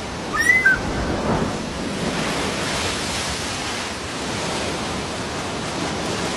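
Steady rushing noise, with a couple of short high chirps about half a second in.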